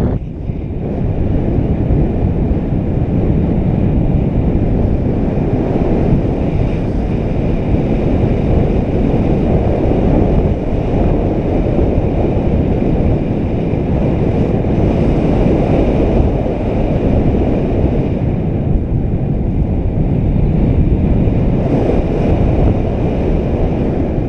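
Steady, loud wind buffeting the camera microphone from the airflow of a paraglider in flight.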